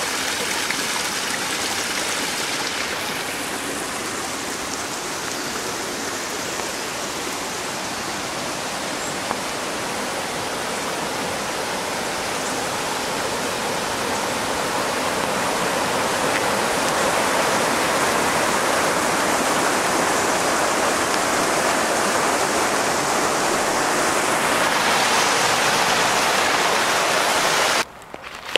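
Mountain stream rushing, a steady, even hiss of running water that grows louder in the second half and cuts off abruptly near the end.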